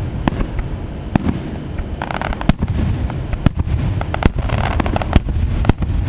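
Aerial firework shells bursting in quick, irregular succession: sharp bangs about every half second over a continuous low rumble. Stretches of crackling come about two seconds in and again just past four seconds.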